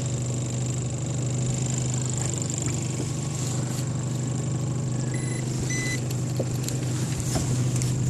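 A small boat's motor running steadily with a low, even hum. Two short electronic beeps sound about five and six seconds in.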